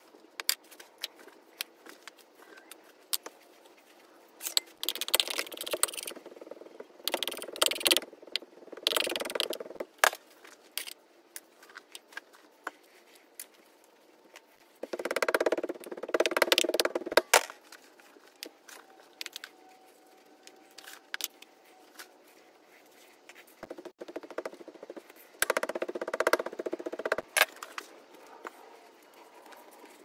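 Petrobond casting sand being scooped with a metal scoop, tipped into a steel moulding flask and rammed down with a hand rammer: several stretches of scraping and crunching between quieter gaps, with scattered clicks and knocks.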